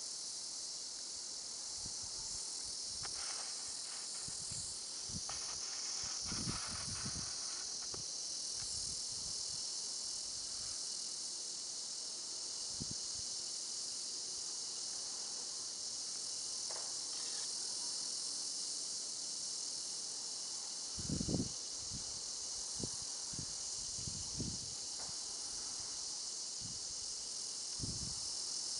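Steady, high-pitched insect chorus, with a few scattered low thumps, the loudest about two-thirds of the way through.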